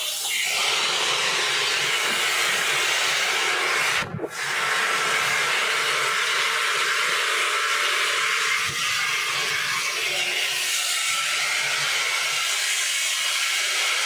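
Handheld hair dryer blowing steadily on hair during a blow-dry, a loud, even rush of air, dipping briefly about four seconds in.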